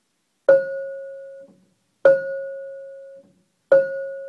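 Prepared piano with bolts wedged between the strings: the same key struck three times, each note a metallic, bell-like ring of a few clear tones rather than a normal piano tone. The first two notes are cut off after about a second; the last rings on longer.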